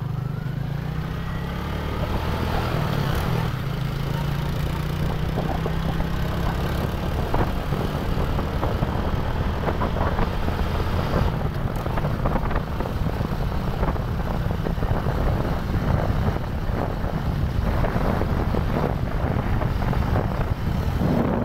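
Motorcycle engines running steadily while riding along, with wind rushing and buffeting over the microphone.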